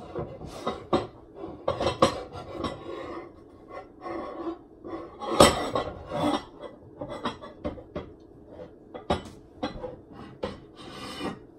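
Dishes and pans clattering and clinking as kitchenware is moved about to get a baking dish out. The knocks are irregular, with the loudest a little past the middle.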